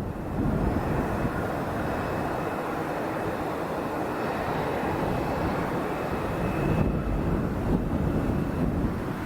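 Jet engines of a Boeing 787-9 airliner running with a steady rumble and a faint high whine over it.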